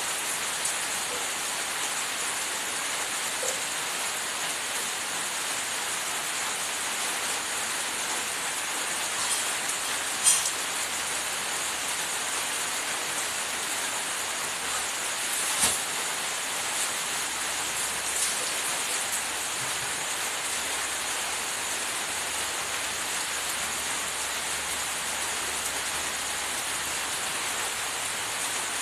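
Steady, even hiss, with two short clicks about ten and sixteen seconds in.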